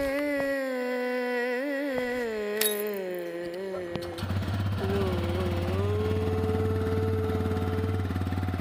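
A hummed vocal melody with a wavering pitch, then about four seconds in a TVS motorcycle engine starts and idles steadily, with a held hummed note carrying on over it.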